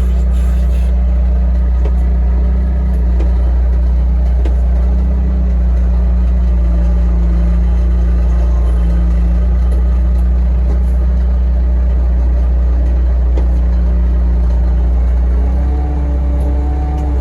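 Heavy machine's engine running steadily with a deep rumble, as it lifts and moves parts of the sawmill.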